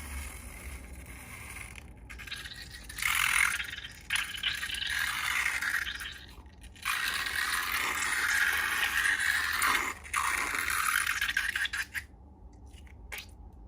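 Scraping and rustling from hands handling slime-making materials, in several stretches of rasping noise a few seconds long, the longest about three seconds.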